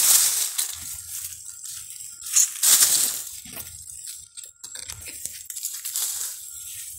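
Dry leaves, grass and twigs rustling and crunching as something moves through brush, in a few loud bursts: one at the start and a bigger one around the middle, with lighter crackling between.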